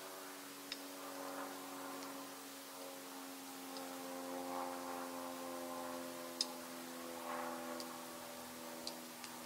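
Wood campfire crackling with a few scattered sharp pops, over a steady low hum.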